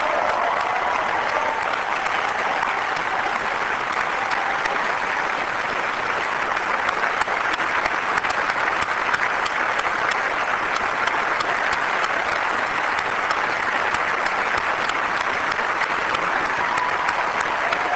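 Large audience applauding steadily, a dense unbroken wash of clapping.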